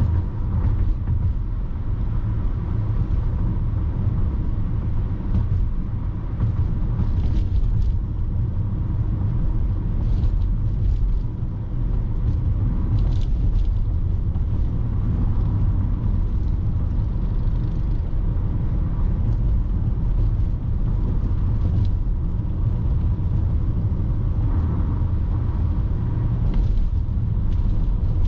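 A car driving along a road, heard from a dashcam inside it: a steady low rumble of engine and tyre noise.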